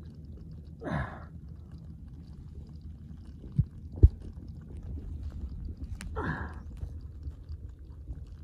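Digging in wet mud with a crowbar: low squelching and rumbling with two heavy thuds a half-second apart near the middle. Twice, a short cry that falls steeply in pitch.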